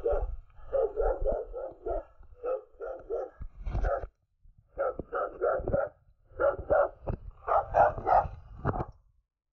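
A dog barking repeatedly in quick runs of barks, over a low rumble; the barking stops shortly before the end.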